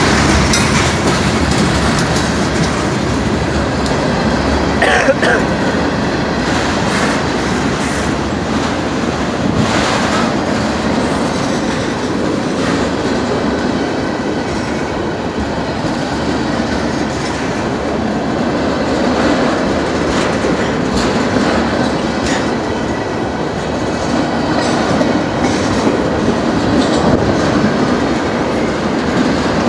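Florida East Coast Railway freight cars rolling past on the rails, a steady loud wheel-and-rail rumble, with a brief squeal about five seconds in.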